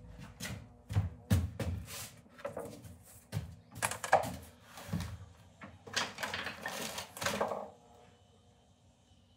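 Irregular knocks, clunks and scrapes as a sheet of wooden panel stock is handled, laid on a table saw's metal top and slid against the fence; the saw is not running. The handling noise stops about eight seconds in.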